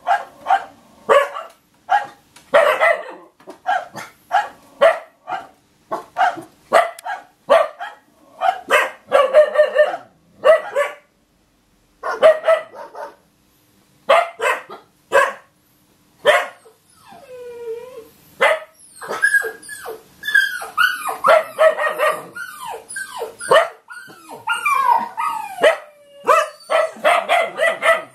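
Dog barking in a run of short, rapid barks, then a long falling cry and a stretch of high whining and yelping that slides up and down in pitch from about two-thirds of the way in.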